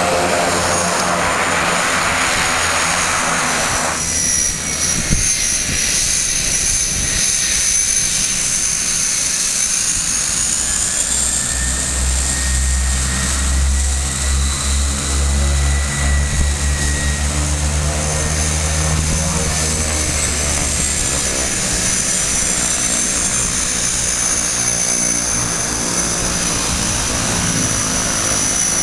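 De Havilland Canada DHC-6 Twin Otter's twin turboprop engines running as it rolls out and taxis on a gravel strip: a high turbine whine that slowly shifts in pitch over the propeller noise. A louder rushing noise fills the first four seconds, and a deep hum from the propellers swells in the middle and fades again.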